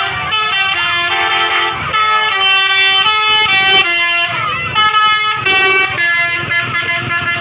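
Multi-tone 'telolet' bus air horn playing a quick tune of stepped notes, each held a fraction of a second, breaking into short choppy blasts near the end.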